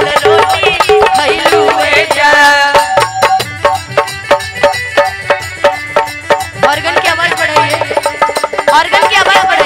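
Live stage-show band playing an instrumental interlude of Bhojpuri folk-pop: a steady, fast drum beat under a keyboard melody. The melody drops back for a few seconds in the middle, leaving mostly the drums, and returns near the end.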